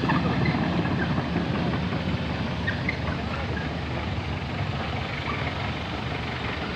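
Excavator's diesel engine running steadily, a low drone that grows a little quieter over the first few seconds.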